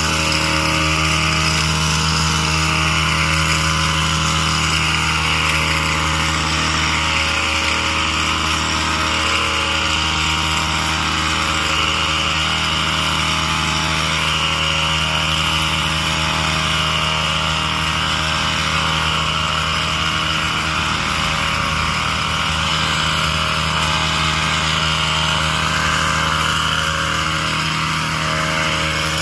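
Small gasoline engine of a handheld trimmer running steadily at a constant speed while cutting bushes.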